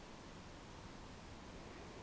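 Faint, steady background hiss of room tone, with no distinct sound.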